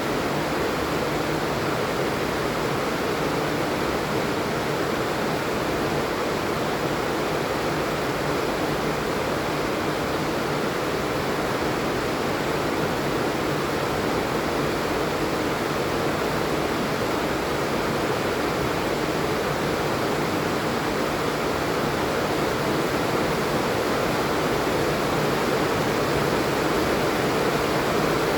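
Steady rain falling, an even unbroken hiss with no separate drops or thunder standing out.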